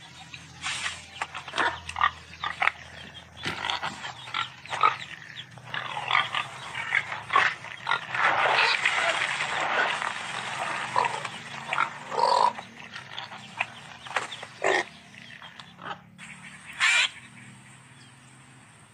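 Cartoon pigs grunting and oinking in many short, quick calls, thickest and loudest for a few seconds about halfway through.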